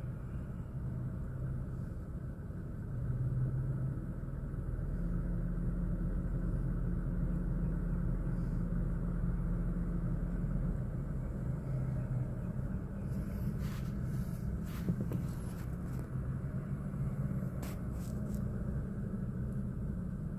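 Car idling at a standstill, heard from inside the cabin: a steady low hum that grows a little louder about three seconds in, with a few short clicks in the second half.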